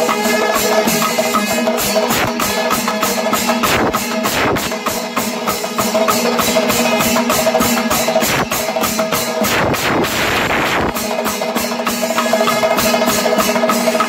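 Kerala panchavadyam temple ensemble playing: fast, dense drum strokes over steady metallic ringing, with the ringing dropping out briefly about ten seconds in.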